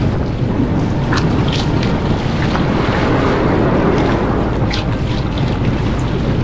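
Fishing boat under way at sea: a steady rush of engine and water with wind buffeting the microphone, and a few brief splashes.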